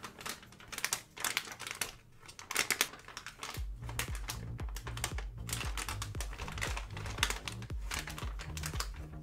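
Plastic cotton candy bag crinkling as it is pulled open and handled. Background music with a steady bass beat comes in about three and a half seconds in.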